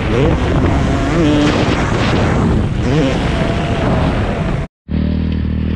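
Dirt bike engine revving up and down as it is ridden, under heavy wind rush on the helmet microphone. About four and a half seconds in the sound cuts off abruptly, and after a brief gap a motorcycle engine idles steadily.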